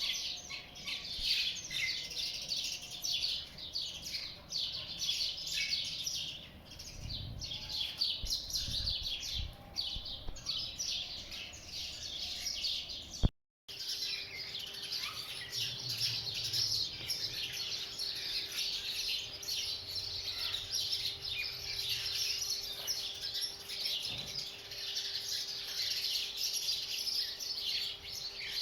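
Many small birds chirping and singing in a dense, continuous chorus, cut off by a brief moment of silence about halfway through.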